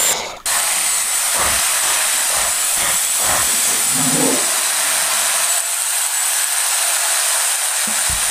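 A steady, fairly loud hiss with almost no low end, following a brief dropout near the start.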